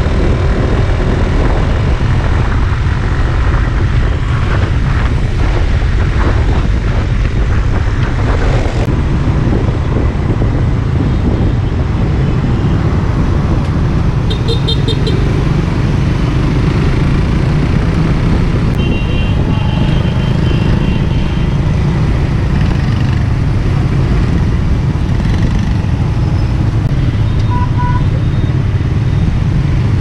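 Suzuki GSX-R150's single-cylinder engine running on the move, under steady wind and road noise, amid surrounding motorbike and car traffic. A few short horn beeps sound about halfway through and near the end.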